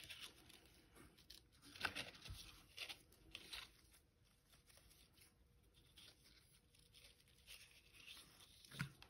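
Faint rustling of a ribbon rubbing against card stock as it is wrapped around a card: a few brief, soft scratchy sounds about two to three and a half seconds in and again near the end, with near silence between.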